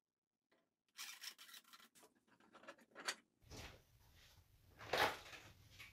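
Glued wooden strips being slid and rubbed against each other on the bench, heard as a run of scraping and rubbing sounds. A sharp knock near the end is the loudest sound, from the bar clamps being handled.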